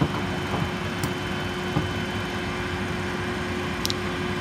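Engine of an articulating boom lift running with a steady, even hum, while the machine is being operated to position its raised basket.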